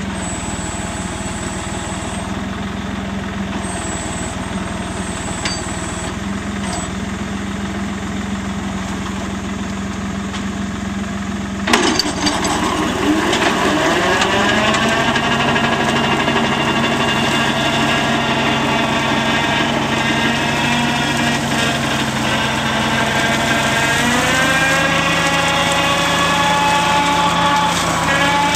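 Tractor engine driving a Sauerburger Wiesel flail slope mower, running steadily at first. About twelve seconds in, the sound changes sharply and a whine rises as the machine speeds up, then holds steady and louder while mowing. Near the end the pitch climbs once more.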